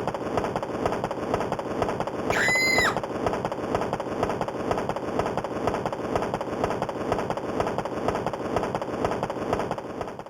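A built-in sound effect of a Yamaha YPT-300 Portatone keyboard: a dense, noisy texture with a fast repeating pulse that starts abruptly and fades out near the end. A short whistle-like tone rises and falls about two and a half seconds in.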